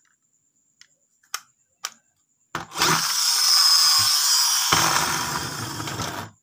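A few light plastic clicks, then about two and a half seconds in, the mechanism of a plastic toy dump truck whirring loudly and steadily for nearly four seconds, deepening about halfway through and cutting off suddenly near the end.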